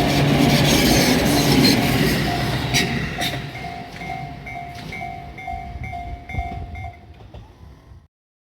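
A Tobu Skytree Line train passes and moves away, loud at first and fading, with a few wheel clacks over the rail joints. A level-crossing warning bell rings steadily at about two and a half strikes a second through the rest, and the sound cuts off abruptly near the end.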